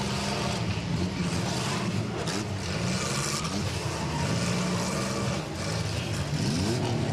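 Six-cylinder demolition derby cars' engines running hard and revving, with a few collision impacts as the cars ram each other. The engine revs rise in pitch near the end.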